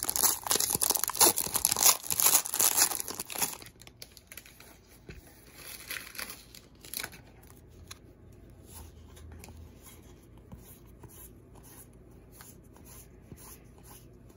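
A 2013 Panini Hometown Heroes baseball card pack's foil wrapper being torn open with loud crinkling for about the first three and a half seconds. After that come quieter light flicks and rustles as the cards are thumbed through by hand.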